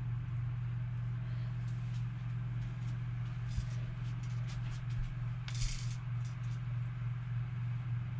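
A steady low machine hum, with a few light clicks and rattles of fishing gear being handled and a short hiss about five and a half seconds in.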